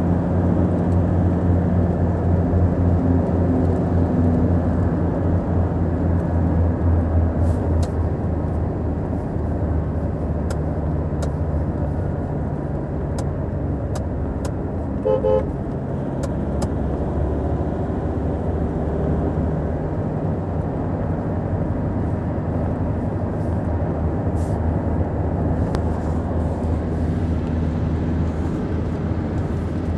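Steady low drone of a car's engine and tyres on the highway, heard from inside the cabin, with a brief horn toot about halfway through.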